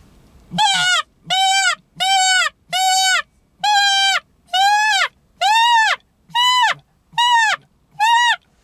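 Nordik Predator mouth-blown predator call sounded hard in about ten separate squealing cries, each rising then falling in pitch, imitating a wounded hare's cry to lure a fox.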